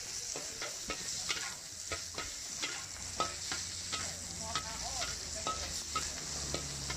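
Hot oil sizzling in a wok while a metal spatula scrapes and clinks against the wok, stirring the food about twice a second.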